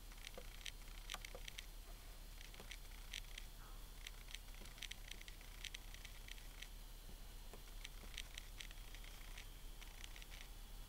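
Faint, light clicks and ticks, coming irregularly in small quick clusters over a quiet steady background hum.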